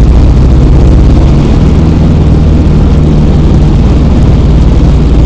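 X-Air microlight's engine and propeller running loud and steady at an even speed.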